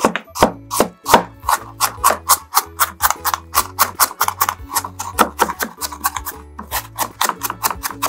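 Kitchen knife mincing onion on a wooden cutting board: quick, even chopping strokes, about five a second, with background music underneath.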